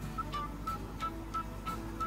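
Background music: a light tune of short, evenly repeated high notes, about three a second, over softer lower notes.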